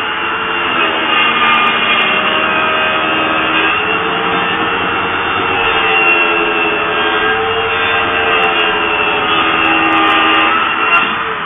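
Handheld electric circular saw running as it cuts, its pitch wavering under load; near the end it is switched off and its pitch falls as it winds down.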